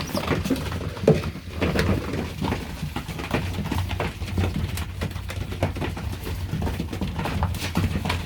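Young racing pigeons feeding, their beaks pecking seed in a rapid, irregular patter of small taps.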